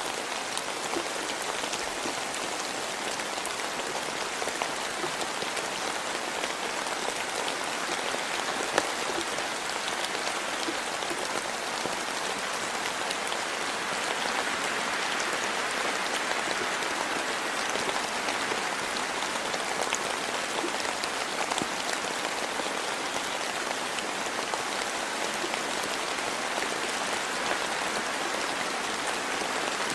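Steady rainfall, with a dense patter of individual drops over an even hiss. One sharper tap stands out about nine seconds in.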